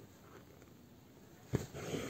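Needle and thread pulled through djellaba fabric while bugle beads are stitched on: a sharp tap about a second and a half in, then a short scratchy rub as the thread is drawn up through the cloth.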